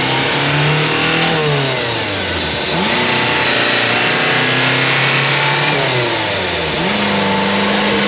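Subaru Sambar mini truck's small engine revving as the truck is driven. Its pitch rises, drops back, and climbs again twice, near three and seven seconds in, as it goes up through the gears, then holds steadier.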